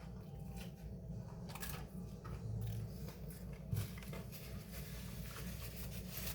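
Faint chewing and small mouth clicks from someone eating a sandwich, with a brief low hum about two and a half seconds in.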